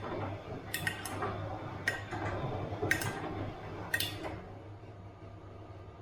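Bosch washing machine drum turning with the load tumbling over a steady low motor hum, and five sharp, ringing clinks about a second apart as something hard in the load strikes the drum. The tumbling and clinks stop about four and a half seconds in, leaving the hum.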